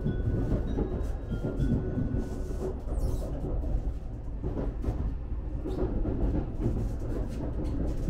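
Shinkansen Nozomi bullet train running, heard from inside the car: a steady low rumble with light clicks and rattles.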